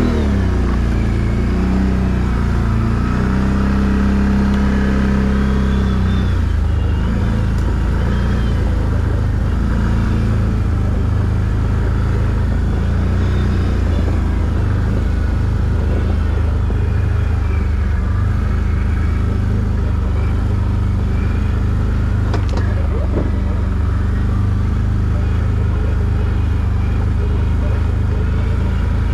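ATV engine running steadily at low revs while the machine is ridden, a continuous low drone.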